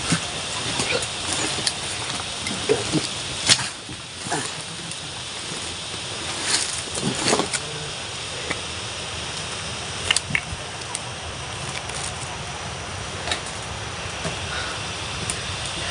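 People walking through forest undergrowth: irregular footsteps, scuffs and snapping of brush over a steady background hiss, with a cluster of louder knocks about a third of the way in and again near the middle.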